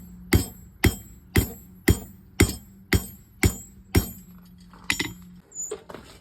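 Hand hammer planishing a hot quarter-inch square steel bar on an anvil: steady strikes about two a second, each with a high metallic ring, giving way to a few lighter taps near the end.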